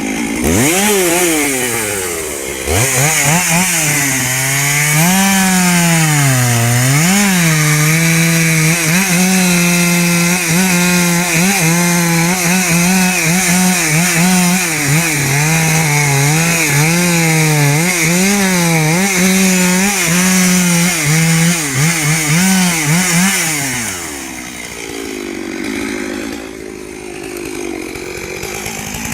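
Two-stroke chainsaw run at full throttle and cutting wood, its engine note repeatedly dipping and recovering as the chain bites. About 24 s in, the note drops back to a low idle, then the saw revs up again at the very end.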